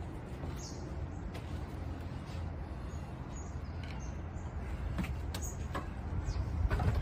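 Outdoor background of a steady low rumble with small birds chirping, and a few light knocks about five seconds in and again near the end as a large quoin piece is set upright against a brick wall on paving.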